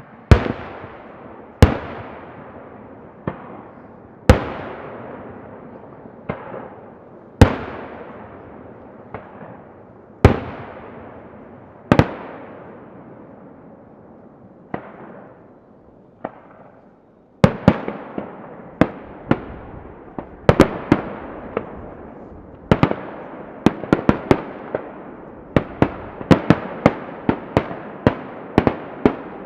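Aerial firework shells bursting about 450 m away, each a sharp bang followed by a long fading echo. The bangs come every second or two, then after a short lull over half-way in they come in a quicker volley.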